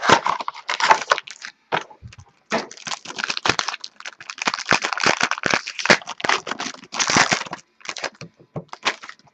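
Crinkling and rustling of card packaging being handled and opened, in a fast, irregular run of crackles with brief pauses.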